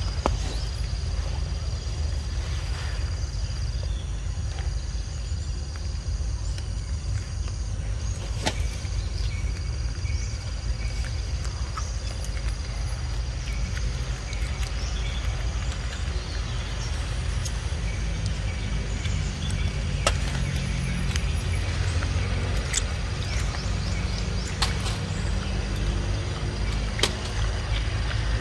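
Outdoor ambience: a steady low rumble of wind on the microphone, with a thin steady insect drone and scattered sharp clicks. A faint low hum joins in over the second half.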